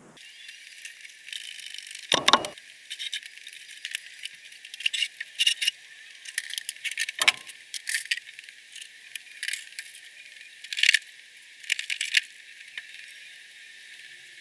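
Irregular metallic clinks, jingles and rattles of tools and parts being handled in a workshop. The sound is thin, with no low end, and two heavier knocks come about two and seven seconds in.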